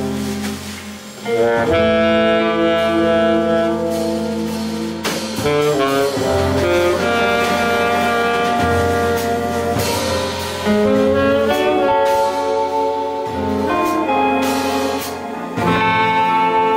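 Small jazz band playing live: a saxophone carries a melodic line of held, gliding notes over grand piano, double bass and drums. The music dips briefly about a second in, then continues.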